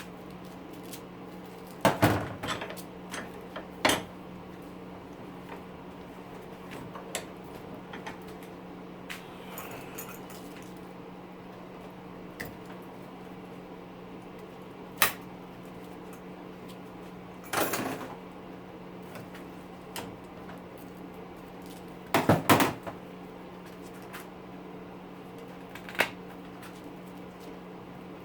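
Scattered clicks and clatters of hand tools and metal parts while copper windings are cut and pulled from a small electric motor, with louder clusters about 2 s in, near the middle and late on, over a steady low hum.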